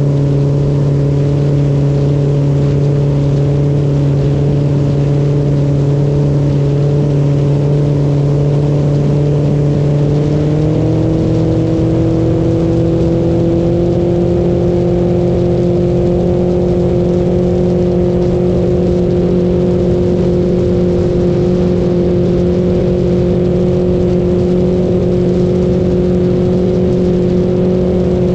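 Mercury Pro XS outboard motor running steadily at cruising speed, heard close up. Its pitch rises a little about ten seconds in and then holds at the higher speed.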